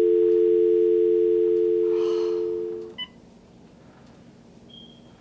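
Telephone dial tone, the steady two-note North American tone, on a handset whose caller has hung up: the line is dead. It fades out about three seconds in and ends with a short beep, and a faint higher beep comes near the end.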